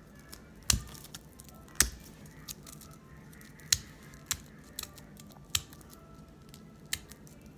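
Plastic toy packaging being worked open by hand: sharp, irregular clicks and snaps, about ten in all, with faint handling noise between them.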